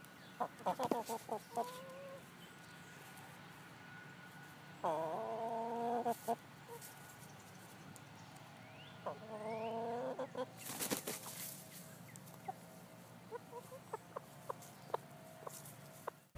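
Chickens calling: three drawn-out calls several seconds apart, with a short burst of noise about eleven seconds in and scattered clicks toward the end.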